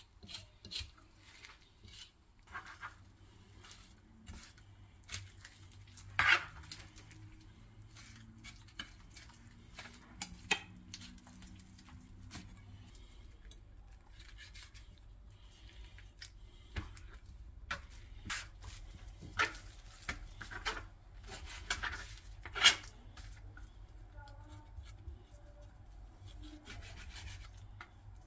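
A chef's knife cutting raw meat off the bone and into chunks: irregular taps and scrapes of the blade against a plastic cutting board, with a steady low hum underneath.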